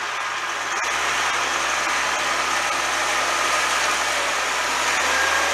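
Diesel engine of a New Holland TVT 145 tractor running steadily while pulling a five-furrow plough. The engine note changes and grows a little louder about a second in.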